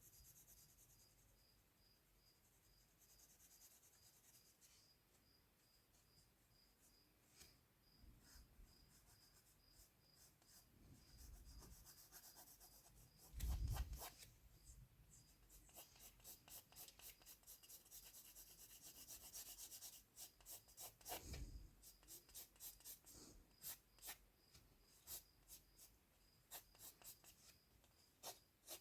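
Faint pencil on paper while sketching: soft rubbing strokes at first, then from about halfway many quick short strokes, several a second. A dull thump about halfway through is the loudest sound.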